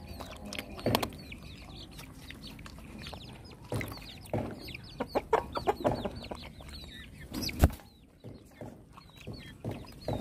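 A dog crunches bones from a metal bowl, with sharp cracks and knocks; the loudest knock comes about three-quarters of the way through. Chickens cluck and chirp in the background throughout, with many short, high, falling calls.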